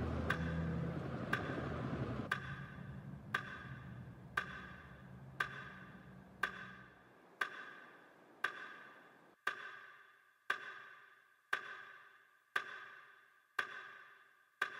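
Mechanical clock ticking once a second, each tick ringing briefly. Background music fades out under it in the first half.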